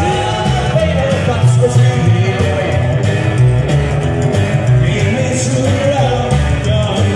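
Live rockabilly band playing: upright double bass, acoustic guitar and drums, with a lead singer.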